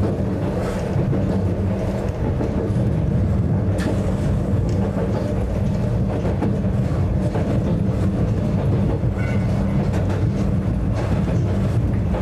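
Narrow-gauge Yokkaichi Asunarou Railway electric train running, heard from inside the car: a steady rumble and low hum with a few faint clicks from the rails.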